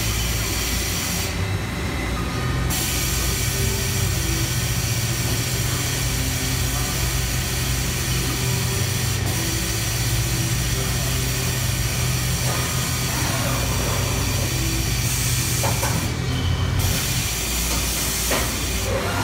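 Haas VF-4SS CNC vertical mill running, its spindle head traversing, with a steady mechanical hum and hiss. The high hiss drops out briefly twice, once near the start and again near the end.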